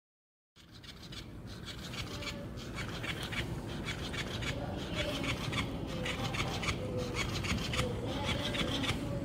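Cat pawing and clawing at a plush fish toy: a scratchy rubbing rasp of claws on fabric, full of quick fine scrapes, starting about half a second in.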